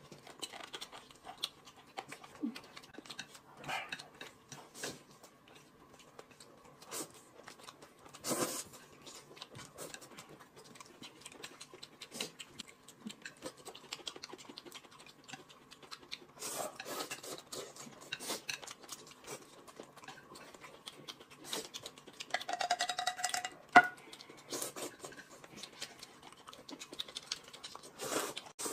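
Quiet eating sounds from two people at a table: scattered clicks and scrapes of chopsticks on plates, with chewing and slurping of noodles.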